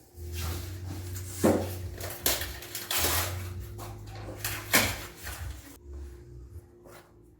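Vinyl floor planks being handled and set into place: rustling and scraping with a few sharp knocks, the loudest about one and a half and nearly five seconds in.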